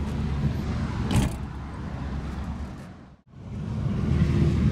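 Steady low outdoor rumble with one short sharp click about a second in; the sound cuts out for a moment about three seconds in.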